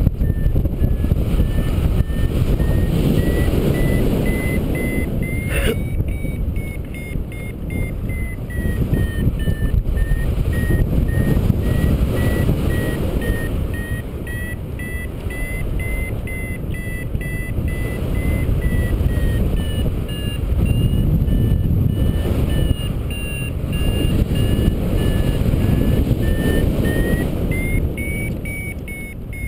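Paragliding variometer beeping rapidly over strong wind noise on the microphone. The pitch of the beeps drifts slowly up and down with the climb rate, the sign that the glider is climbing in lift. There is a single sharp click about six seconds in.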